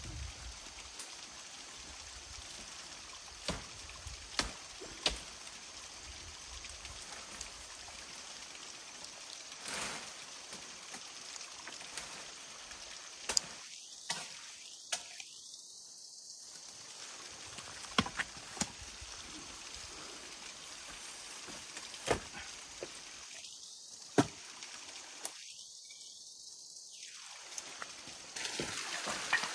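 Steady hiss of running water, with about a dozen sharp clicks and knocks scattered through it. The hiss drops away briefly twice, about halfway through and again near the end.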